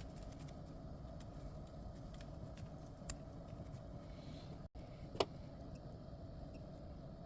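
Faint steady low background hum with a few light clicks from small parts being handled at a workbench, and one sharper clink about five seconds in.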